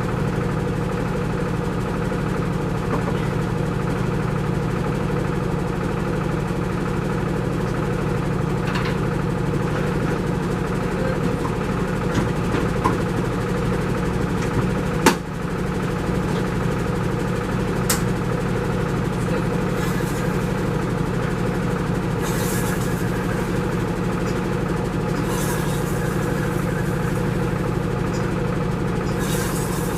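Steady low mechanical hum, with a sharp click about halfway through.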